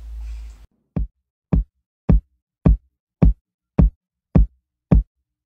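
End-card music: a steady electronic kick-drum beat, a little under two beats a second, each beat a short low thud. A low hum runs under the start and cuts off suddenly under a second in.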